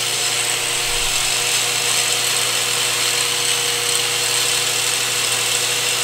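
Angle grinder running steadily at full speed with its disc spinning free, not cutting: a loud, even whine and hiss.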